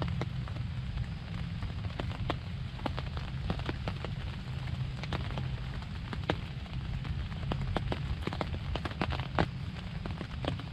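Rain falling on the fabric of a pop-up ground blind: irregular drops ticking on the fabric over a steady low rumble.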